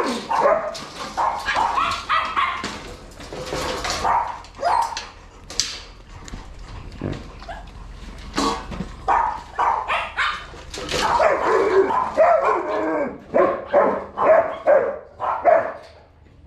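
Several large dogs barking and yelping excitedly at feeding time as raw meat is brought to their cages, with a quicker run of barks, about two a second, in the second half.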